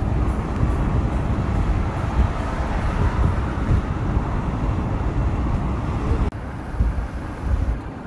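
Road and wind noise from inside a moving car, a steady low rumble that drops suddenly to a quieter level about six seconds in.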